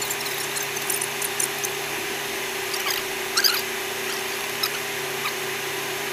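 Cabin noise of an SUV driving over desert sand: a steady hum and hiss with scattered high squeaks and rattles from the vehicle's interior.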